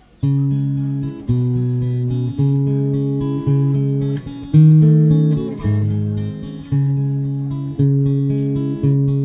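Acoustic guitar starting a folk song: chords struck about once a second, each left to ring, beginning suddenly out of silence right at the start.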